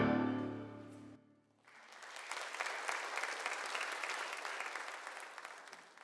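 The choir and orchestra's final chord dies away. After a brief gap a congregation applauds, fading out near the end.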